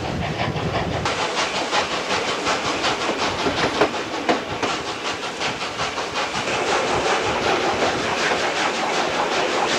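Ex-South Australian Railways steam locomotive 520 working under steam: quick, even exhaust beats up the chimney, several a second, over a steady hiss of steam.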